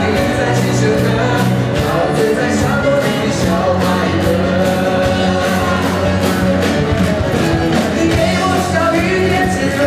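Live rock band playing a song with a steady drum beat and electric guitar, with a singer singing lead vocals into a microphone.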